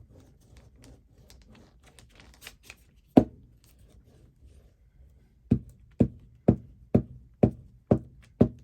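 Sharp knocks on a tabletop from vigorous gluing of paper into a journal. One loud knock comes about three seconds in, then seven more in a steady run at about two a second near the end, with faint paper rustling before them.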